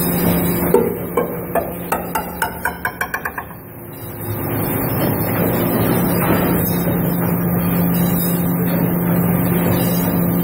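Hydraulic deep-drawing press running with a steady hum. About a second in, a string of sharp knocks comes faster and fainter over a couple of seconds, like a metal piece bouncing to rest. After a short dip, a heavier steady rushing noise builds and holds as the press works.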